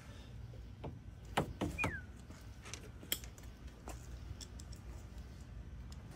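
Scattered small clicks and taps, the sharpest about a second and a half and three seconds in, over a low steady hum, with one short falling squeak about two seconds in.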